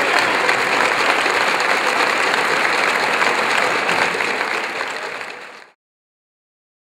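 A group of people clapping. The applause fades away and cuts off about five and a half seconds in.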